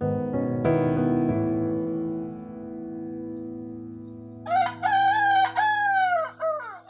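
A rooster crowing once, a long call about two-thirds of the way in that falls in pitch at its end, after piano chords that ring out and fade.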